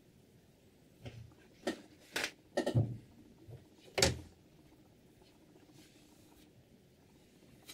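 Knocks and clacks of hard parts being handled: about six short, sharp knocks in quick succession between one and four seconds in.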